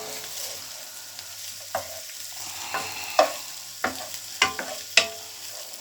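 Vegetables and pasta sizzling gently in a frying pan as they are stir-fried, with a utensil knocking and scraping against the pan several times.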